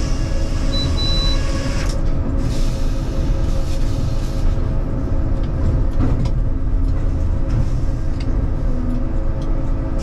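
Cleereman sawmill carriage and circular headsaw running, heard from inside the sawyer's glassed-in cab: a steady heavy rumble with machine hum as the carriage runs a log through the saw. A short high beep sounds about a second in.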